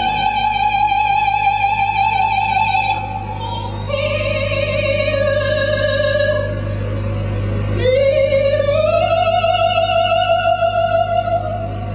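Music: a high, operatic-sounding melody of a few long held notes with vibrato, sliding upward into the last note, over a steady low hum.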